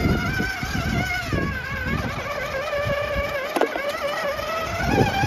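Electric drive motor of a radio-controlled rock crawler whining as the truck creeps up a rock ledge, its pitch wavering up and down with the throttle, over low rumbling and scuffing.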